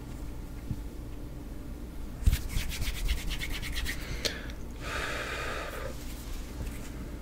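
Bare hands making sounds close to a microphone. After a soft thump about two seconds in comes a fast run of crisp finger clicks lasting about two seconds, then about a second of palms rubbing together.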